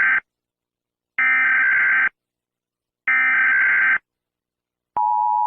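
Emergency Alert System header: the end of one burst of buzzy digital data tones, then two more bursts about a second long with a second of silence between them. About five seconds in, the steady two-tone EAS attention signal starts.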